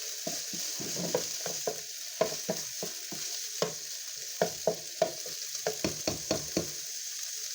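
A utensil knocking and scraping against a cooking pot as food is stirred, over a steady sizzle of food frying in oil and butter.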